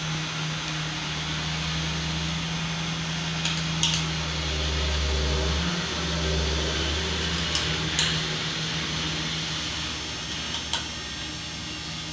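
A steady low machine hum, louder for a few seconds in the middle, with a few light metal clicks from an Allen wrench on the bolts holding a power drawbar to a milling machine head.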